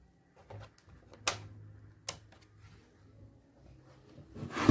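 Hard plastic clicks and knocks from an Acer Aspire 5349 laptop's battery and casing as the battery is fitted into its bay on the underside. There are two sharp clicks, then a louder cluster of knocks near the end as the laptop is handled.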